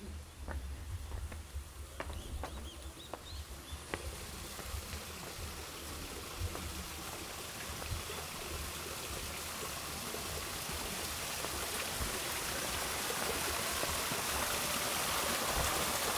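Running water that grows steadily louder, with a few light clicks in the first few seconds.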